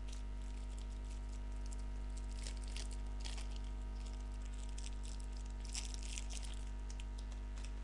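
Clear plastic packet crinkling and rustling as it is handled and opened, in clusters about two to three seconds in and again around six seconds, over a steady electrical hum.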